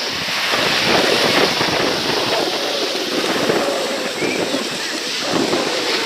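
Wind blowing: a steady, loud rushing noise that rises and falls slightly.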